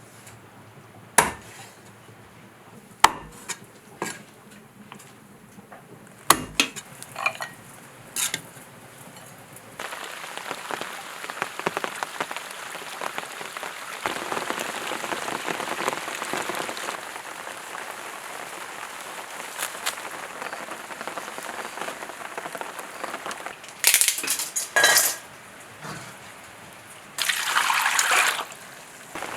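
Kitchen clatter: a handful of sharp knocks and clinks of pots and utensils in the first eight seconds. About ten seconds in, a steady hiss starts, with two louder bursts of noise near the end.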